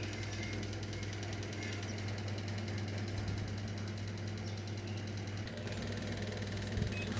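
Small electric mini fan running steadily, its little motor giving a fast, even rattling buzz over a constant low hum.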